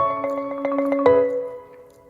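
Background music: a light tune of sustained pitched notes over soft ticking, changing notes about a second in and fading out near the end.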